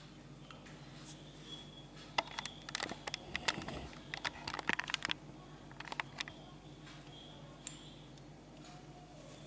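Small hard clicks and clatters from handling electrical test gear (plug, probe leads and fittings), densest from about two to five seconds in, with a few single clicks later, over a faint steady hum.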